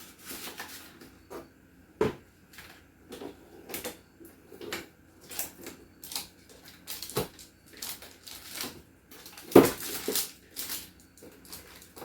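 Food items knocking and clattering in a refrigerator's door shelves as they are taken out and rearranged, in irregular clicks and knocks. There is a sharp knock about two seconds in and the loudest one near ten seconds.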